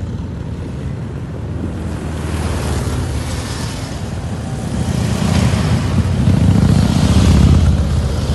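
Harley-Davidson motorcycles' V-twin engines rumbling through a curve, growing louder about five seconds in, with wind buffeting the microphone.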